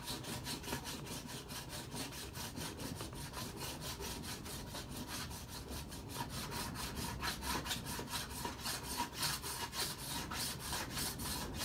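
Hand filing with a small triangular file along the dovetail edge of a sled's quick-change runner: quick, even back-and-forth strokes, about five a second, smoothing down rough, damaged sections of the dovetail.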